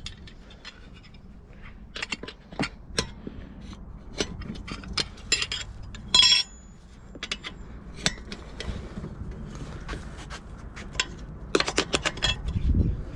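Metal tire spoons clinking and scraping against each other and the wheel rim as they are handled. There is a loud ringing clink about six seconds in and a quick run of clicks near the end.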